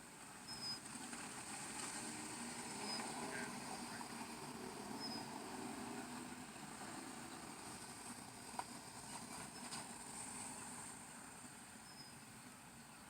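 Faint roadside traffic and vehicle noise with a steady high hiss, and a single click about eight and a half seconds in.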